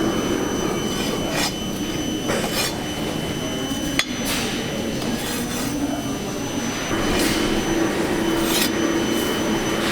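Hand work on foundry sand moulds: irregular rasping, scraping strokes of sand being worked in a mould box, over a steady machine hum, with one sharp click about four seconds in.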